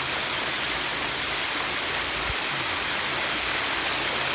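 Steady rushing and splashing of a backyard pondless waterfall and stream, water cascading over rocks. A faint low thump about two seconds in.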